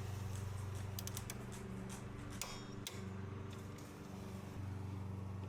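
Torque wrench ratcheting on a bolt, a few scattered metallic clicks, over a steady low hum.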